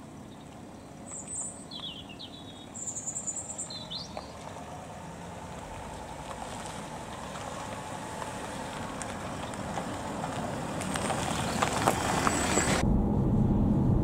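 A Land Rover and a Vauxhall SUV drive slowly toward the microphone, engines running and tyres crunching over gravel, growing steadily louder as they come closer; a bird chirps a few times in the first seconds. Near the end the sound cuts to the low rumble of road noise inside a moving car.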